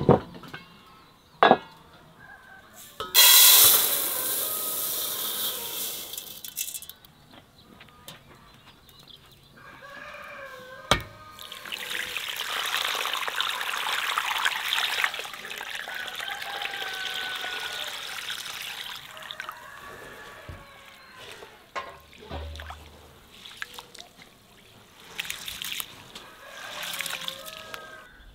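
Water poured from a metal jug into an enamel basin of rice, splashing as a hand swishes and washes the rice, in two long spells. A few sharp clinks of metal and enamel come near the start and again partway through.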